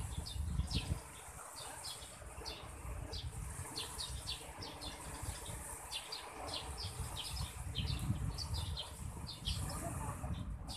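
Outdoor ambience of repeated short, high chirps, two or three a second, over a low, uneven rumble.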